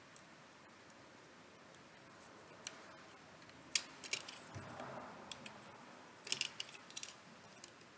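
Scattered light clicks and taps of small parts being handled as the left I/O board is connected to a MacBook Air logic board. The sharpest click comes near the middle, with a quick run of clicks later on.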